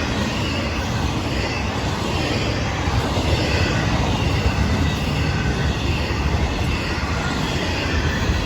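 Florida East Coast Railway freight train rolling past, a steady, unbroken rumble of wheels on the rails.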